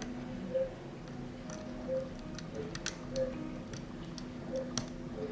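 Irregular small metal clicks and ticks of a dimple pick and tension tool working the pins of a five-pin dimple padlock, over a faint low hum.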